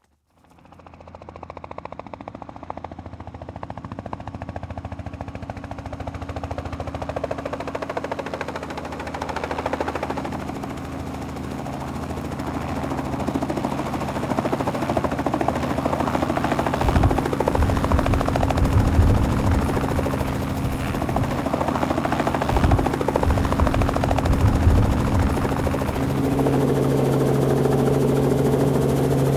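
Helicopter running steadily, fading in at the start and growing gradually louder, with gusts of low rumble partway through.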